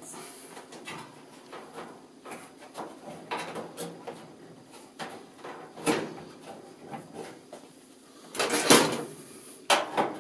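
Handling noise from a rubber dryer belt being worked around a dryer drum and pushed into the opened drum seal: irregular rubbing, scraping and small knocks, a sharp knock about six seconds in, and the loudest scraping a little after eight seconds.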